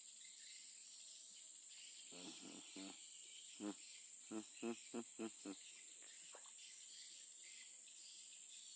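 Faint, steady chirring of crickets and other insects. From about two seconds in, a quick run of six or seven short pitched calls is heard whose source is unclear.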